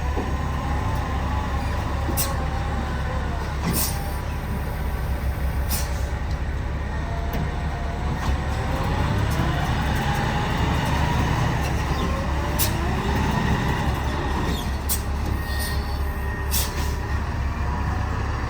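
Heavy diesel engine running under load, its pitch rising and falling as the revs change, with a few sharp clicks over it.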